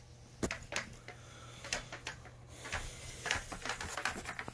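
Handling noise: scattered light clicks and taps at an irregular pace, growing denser in the second half, as the sword and the phone are moved about.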